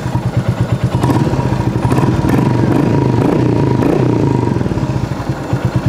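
Motorcycle engine running with a loud, rapid, even exhaust beat.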